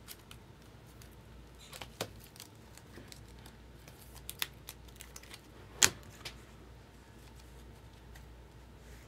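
Trading cards in plastic sleeves and holders being handled and gathered into a stack: a few scattered light clicks and taps, the loudest about six seconds in.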